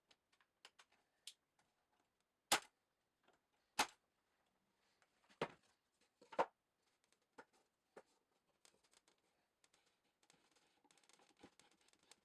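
Scattered sharp clicks and knocks of objects being handled and set down, with four louder knocks in the first half and a run of small rattling clicks near the end.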